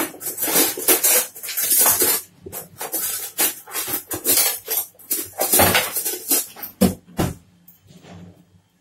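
Metal spoon scraping and knocking against a kadhai of thick gajar ka halwa, with clinks of dishes, in a busy run of clatter that dies away about seven seconds in.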